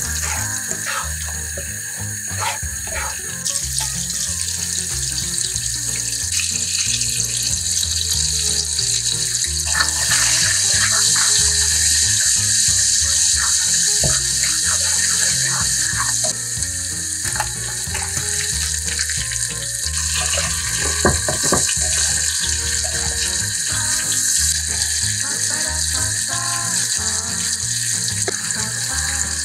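Butter sizzling and foaming in a hot non-stick frying pan, with a spatula stirring and scraping through it. The sizzle grows louder about ten seconds in.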